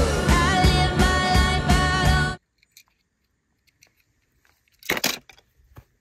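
Background music with a steady beat and held notes cuts off suddenly about two and a half seconds in. After a near-silent gap comes one brief loud noisy clatter about five seconds in, followed by a few faint ticks.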